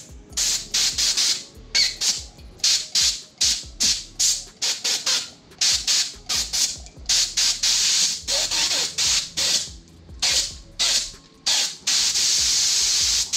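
Air-powered paint spray gun sprayed with acetone to flush it clean, in short hissing bursts about two a second, then one steady spray from about twelve seconds in. Background music plays underneath.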